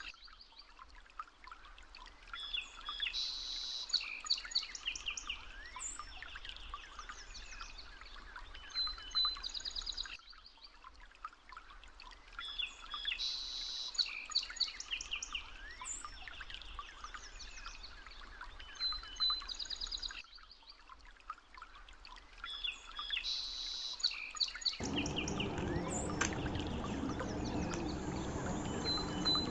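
Birdsong ambience, chirps and trills over light outdoor noise, repeating in an identical loop about every ten seconds like a stock background track. About 25 seconds in, a louder, lower sound joins it.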